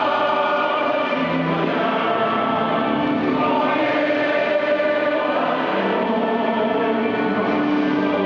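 Choral music: many voices singing together in long, held notes.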